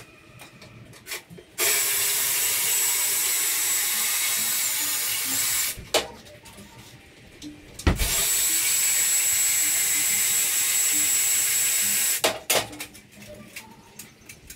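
A power drill runs in two steady stretches of about four seconds each, with a high whine, separated by a pause of about two seconds.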